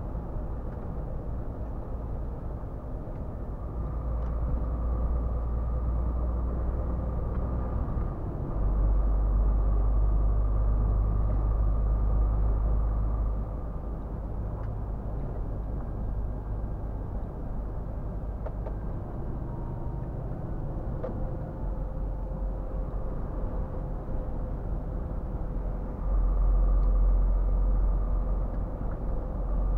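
Scania R450 truck's 13-litre inline-six diesel droning steadily while driving, heard from inside the cab along with road noise. The drone grows louder for a few seconds about a third of the way in and again near the end.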